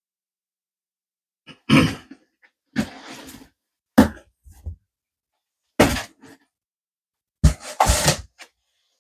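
Five separate handling noises about a second apart, each a short thump with a brief scrape or rustle, as packaged 3D printer parts are lifted out and set down.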